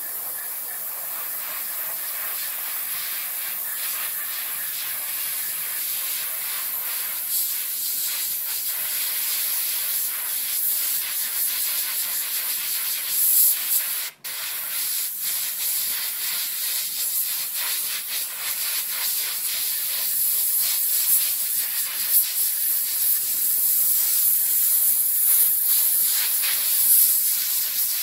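Gravity-feed airbrush hissing steadily as it sprays paint, broken by a brief gap about halfway through.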